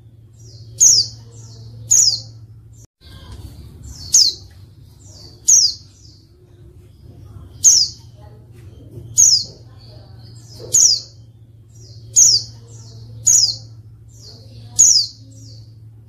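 Female white-eye (pleci) calling: about ten short, sharp, high notes, each sliding downward, spaced a second or two apart, with softer high chips between them. This is the female's call used to draw male pleci into calling back. A steady low hum runs underneath.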